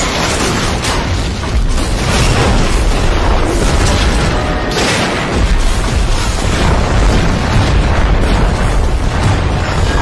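Explosions booming one after another with a dense, continuous rumble, and louder blasts about one and a half and five seconds in; background music plays underneath.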